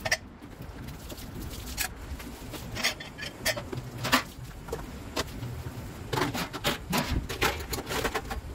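Glasses and stainless steel cups and pitchers clinking and knocking as they are washed and set down. The knocks come singly at first, then in a quick cluster from about six seconds in.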